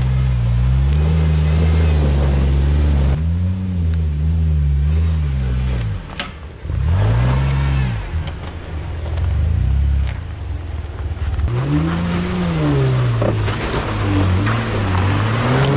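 Off-road Jeep Wrangler JK engines revving up and down under load as the Jeeps crawl up a steep, muddy trail. The engine note swells and falls again and again and changes abruptly several times.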